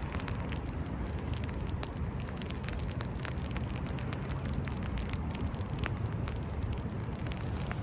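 Wind rumbling on the microphone, with many scattered sharp clicks and crackles throughout; no siren sounds.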